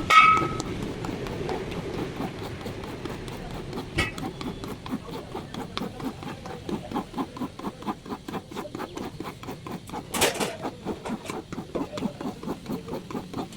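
A metal tool rings once as it is struck, then short regular strokes of hand work on the tyre follow, about three a second, with a brief hiss about ten seconds in.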